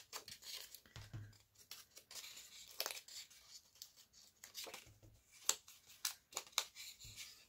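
Foam-tipped ink dauber rubbed and dabbed along the edge of a sheet of decorative paper, inking its cut edges: faint, irregular scratchy strokes with a few soft thuds as the paper is handled.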